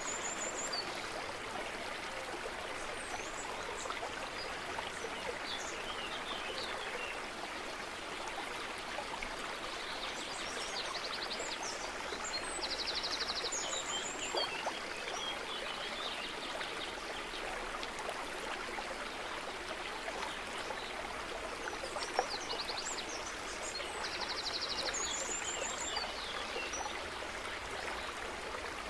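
Steady rush of running water like a stream, with short high bird chirps. The same chirp pattern comes back about every twelve seconds, so the stream-and-birds ambience is looped.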